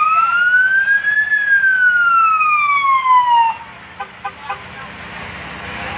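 An emergency vehicle's siren sounding one long wail: the pitch climbs to a peak about a second in, then slides down and cuts off suddenly about three and a half seconds in.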